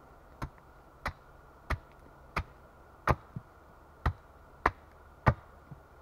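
Hatchet chopping into the end of a wooden pole braced on a chopping block: nine sharp strikes about two-thirds of a second apart, louder in the second half.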